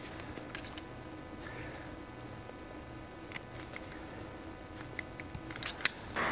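Short sharp clicks and snips of a hand wire stripper working on automotive wire: a couple about half a second in, a few around three and a half seconds, and a quicker run near the end.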